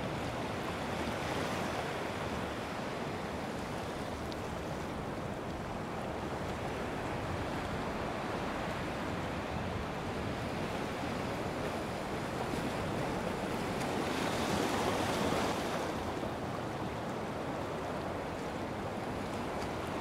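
Sea surf washing against a rocky shore: a steady rushing wash that swells louder about fifteen seconds in.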